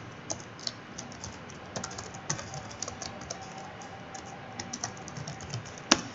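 Typing on a computer keyboard: a run of quick, irregular key clicks, with one sharper, louder keystroke near the end.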